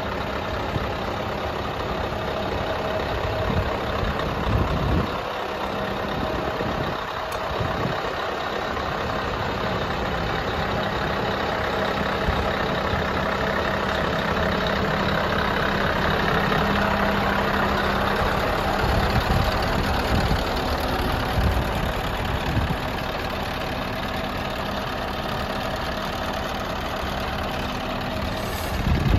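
Scania R500's 16-litre V8 diesel engine idling steadily, with a few brief low buffets about five to eight seconds in.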